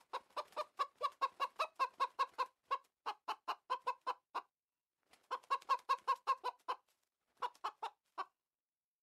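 Chickens clucking in quick runs of short clucks, about five a second, in three bouts with short pauses between them; the clucking stops shortly before the end.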